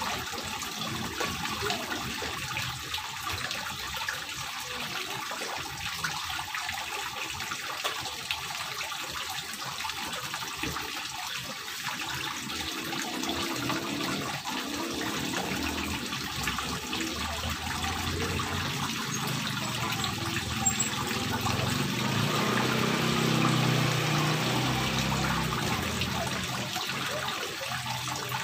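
Water trickling down a ridged stone water-wall fountain and splashing steadily into the pond basin below. A low rumble swells under it in the second half, loudest a few seconds before the end.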